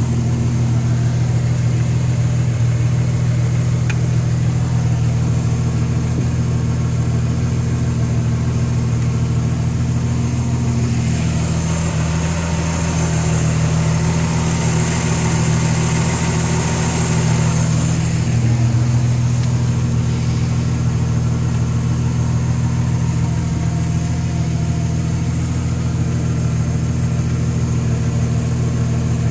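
A MerCruiser inboard boat engine idling steadily, its note shifting slightly about halfway through.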